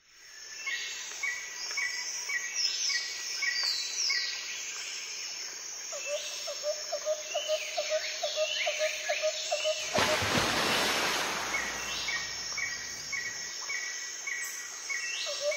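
Several birds calling outdoors: a run of short repeated chirps, high falling whistles, and in the middle a lower note repeated about three times a second. About ten seconds in, a steady rushing noise comes up underneath the calls.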